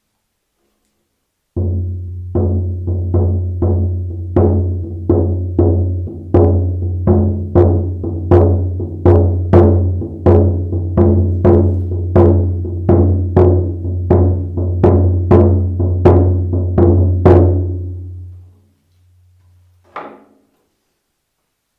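Shaman drum beaten steadily, about two strokes a second, each stroke a deep booming ring that carries on under the next. It starts about a second and a half in and dies away a few seconds before the end, followed by one lone knock.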